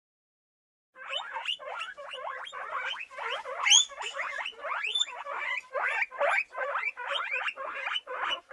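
Guinea pigs squeaking in a rapid run of short rising calls, about three a second. The calls start about a second in, and one louder, higher call comes near the middle.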